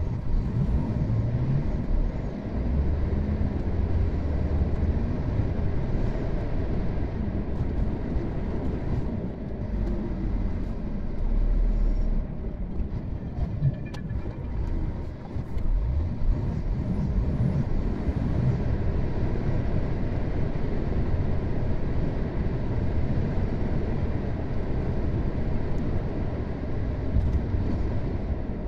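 Road noise from a moving car: a steady low rumble of engine and tyres, easing slightly about halfway through.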